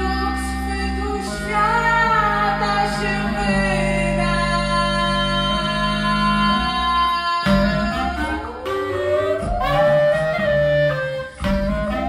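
Live experimental music: clarinet and wordless female singing with held and sliding notes over a steady low drone from keyboard electronics. The sound briefly drops away just before the end.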